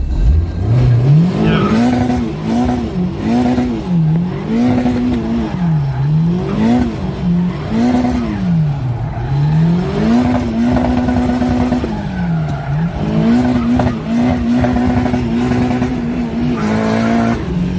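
Nissan 180SX's turbocharged SR20DET four-cylinder heard from inside the cabin, revving up and dropping back over and over, then held at high revs for two long stretches, with tyre squeal from drifting.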